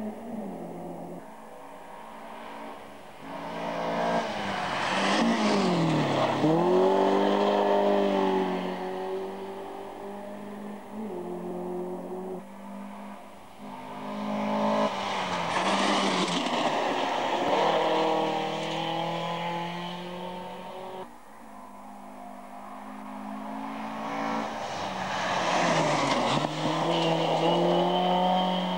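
Three rally cars, one after another, passing at speed on a gravel stage: each engine climbs to high revs, its pitch dips and then climbs again as it goes by, with a hiss of tyres on gravel at each peak.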